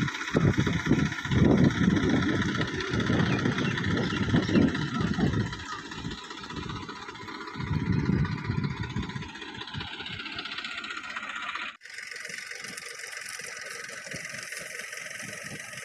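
New Holland 3630 tractor's diesel engine running under load as it drags dry palm fronds, with uneven low rumbles over the first several seconds. About twelve seconds in the sound drops suddenly and becomes quieter and thinner.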